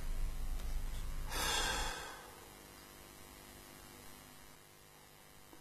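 A man sighs once, a breathy exhale of about half a second roughly a second and a half in, over a low steady hum that drops away soon after, leaving quiet room tone.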